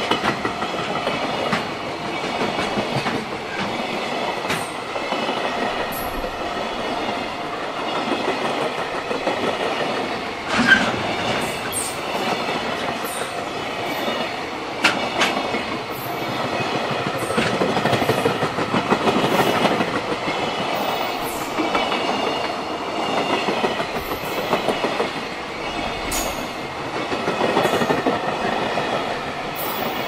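A container freight train's flat wagons rolling past close by: a steady rumble of wheels on rail with clicking over the rail joints. Sharp metallic clanks come about a third of the way in and again about halfway.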